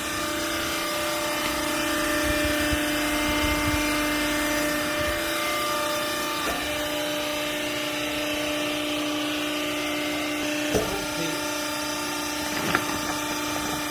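Vertical clothing baler's electric motor and hydraulic pump running steadily, a constant hum with a held tone over dense mechanical noise. Two short knocks sound near the end.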